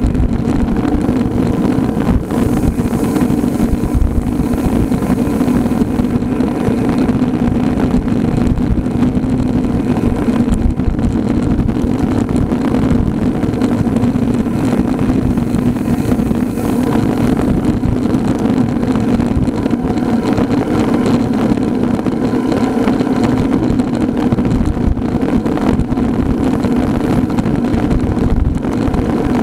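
Steady engine drone at an even, unchanging pitch, as of a motor vehicle running at constant speed, mixed with road and wind noise.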